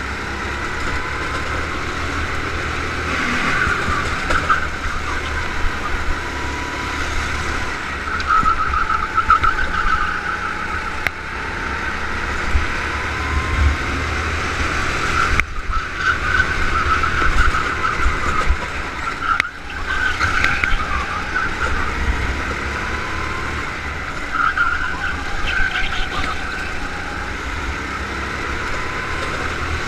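Go-kart engine running at speed through a lap, heard from on board the kart, its note swelling and falling back as it accelerates and lifts for corners, with a low rumble of wind and vibration underneath. The engine sound drops off briefly twice in the middle.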